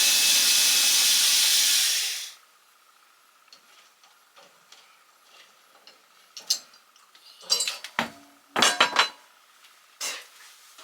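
A power drill runs steadily for about two seconds, then stops, backing out screws from the closet fittings. Several sharp metallic clinks and knocks follow a few seconds later, clustered near the end, as screws and tools are handled.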